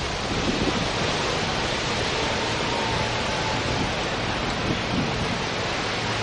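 Steady rush of Gulf surf breaking on a sandy beach, an even hiss with no distinct wave strokes.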